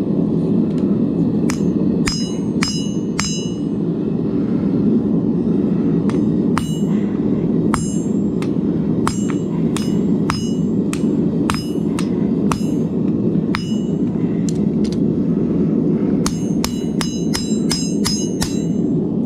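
Ball peen hammer striking hot 1084 high-carbon steel on an anvil, forging in a finger choil. The blows are spaced irregularly, each with a metallic ring, with a quick run of about ten near the end. Under the blows runs a steady rushing noise, likely the gas forge's burner.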